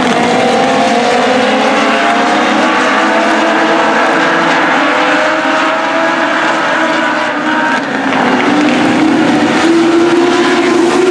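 A pack of US Legends race cars running hard, their four-cylinder Yamaha motorcycle engines making several engine notes that climb in pitch together. The sound dips briefly about eight seconds in, then settles into a steadier, lower drone.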